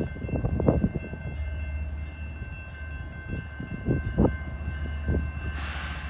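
Approaching freight train: a steady low rumble, with faint steady high tones throughout and a brief hiss near the end.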